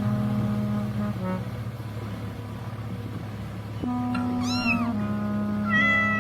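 A domestic cat meows twice in the second half, two short calls rising and falling in pitch, over background music of steady held notes.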